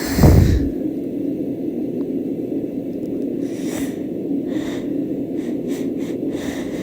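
A woman's sneeze right at the start, a short falling blast of breath that hits the microphone, followed by a few quiet breaths. Under it all runs the steady whir of a bedroom sound machine.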